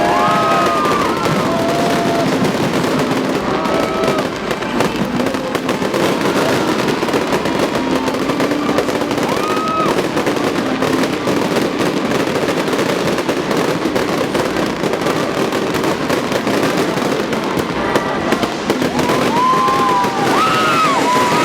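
A fireworks display with a continuous barrage of bangs and crackling. Near the start and again near the end there are shouts from the watching crowd.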